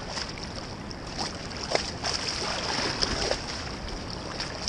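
River water lapping and splashing against a stone-paved bank, with a few sharper splashes in the middle.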